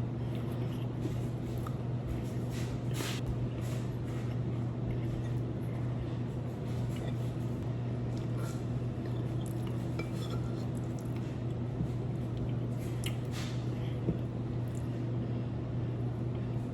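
Close-up eating sounds: a few light clinks of cutlery on a plate and wet chewing, over a steady low hum.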